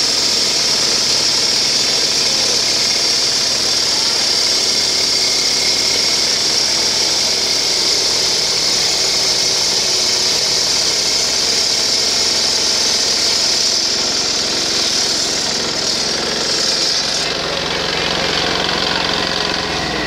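Stone-cutting saw with an electric motor running while cutting granite: a loud, steady, high grinding hiss over a lower machine hum. The high hiss fades out about 17 seconds in, leaving the hum.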